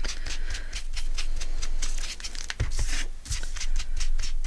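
Paper doily being distressed ('grunged up'), rubbed and scraped in a quick run of scratchy strokes, with a few soft knocks past the halfway point.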